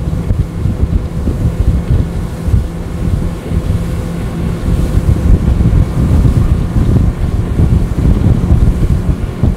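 Twin Yamaha 115 outboard motors running hard on a top-speed run, winding up toward about 6,000 rpm, with heavy wind buffeting on the microphone and the rush of the hull and wake.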